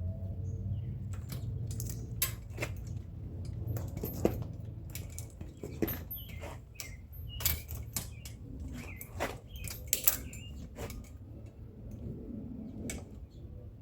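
Irregular metallic clinks, clicks and knocks of tools and bike parts being handled while the rear wheel of an electric mountain bike is taken off.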